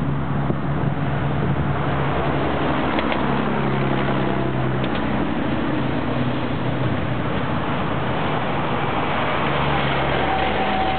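Approaching GE-built NR class diesel-electric locomotives hauling a passenger train: a steady low engine drone under a constant hiss of background noise, with a faint thin whine joining near the end.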